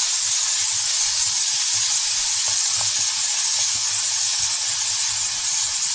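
Diced peppers, corn and zucchini sizzling steadily in hot oil in a nonstick wok as they are stirred with a silicone spatula.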